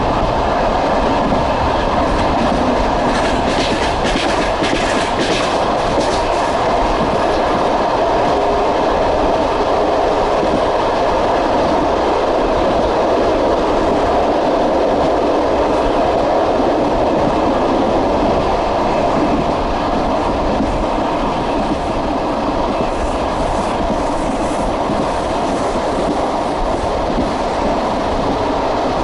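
Passenger train running at speed on the rails: a steady rumble of the carriage, with the clickety-clack of wheels over rail joints that gets sharper a few seconds in and again near the end.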